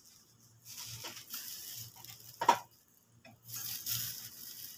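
Someone climbing the steps of an aluminium scaffold tower: rustling and shuffling, with one sharp knock on the metal about two and a half seconds in.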